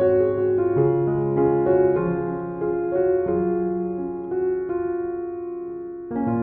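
Soft, slow solo piano background music, single notes and gentle chords changing about every half second to second.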